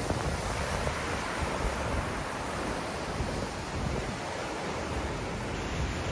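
Ocean surf washing onto a beach, a steady rush of breaking waves, with wind buffeting the microphone.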